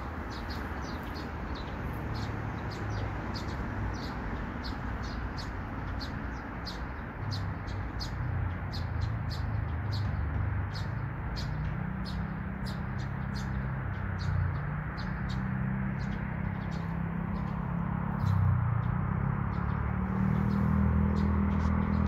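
Birds chirping in trees: a steady run of short, high chirps, several a second, over a low steady rumble that grows louder near the end.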